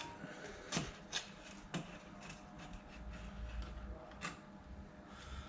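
A few sharp clicks and knocks of hand work with containers and tools, four or so spread over several seconds, with a faint low rumble about halfway through.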